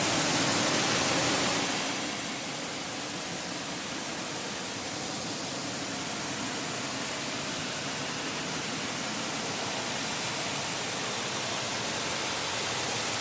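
Waterfall: water falling and splashing as a steady rushing noise, a little louder for the first two seconds and then even.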